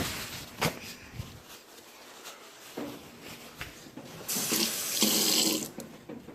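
Water running from a tap into a sink for about a second and a half, about four seconds in, after a few light knocks and clicks.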